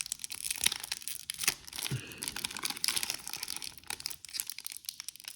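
A trading card pack's wrapper being crinkled and torn open by hand: an irregular run of sharp crackles. The pack is hard to open.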